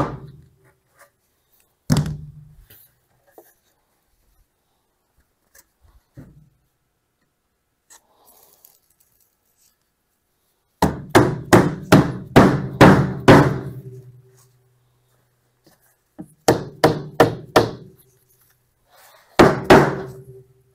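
Rubber mallet tapping a knockdown cabinet's side panel down into the face frame's dovetail groove, which is fitted with a rubber spline. A single knock near the start and another about two seconds in, then a quick run of about ten blows, then two shorter runs of blows near the end.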